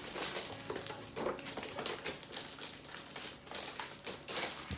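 Clear plastic wrapping on an action-figure box crinkling as it is handled, in irregular bursts of crackles.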